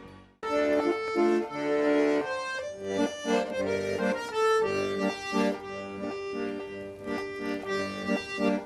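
Accordion playing a folk tune in sustained, changing chords, starting about half a second in after a brief silence.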